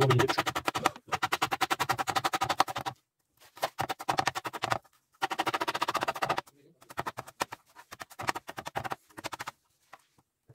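Onion being chopped fast with a knife on a cutting board: runs of rapid, even knocks, about ten a second, broken by short pauses.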